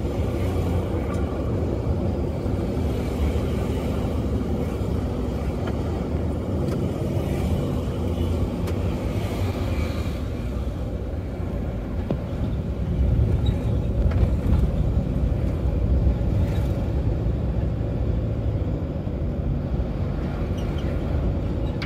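Road traffic running steadily: a low engine and tyre rumble, swelling for a few seconds past the middle as a vehicle passes close.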